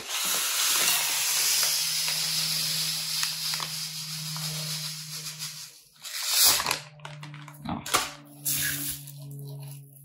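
Dry flocão (flaked corn meal) being poured, a rushing hiss that slowly tapers off over about five seconds, followed by two shorter pours.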